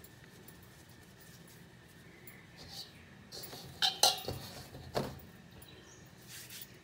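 Hands working soft roti dough into balls in a flour-dusted stainless steel bowl, with a few sharp knocks and clinks against the metal bowl about four and five seconds in.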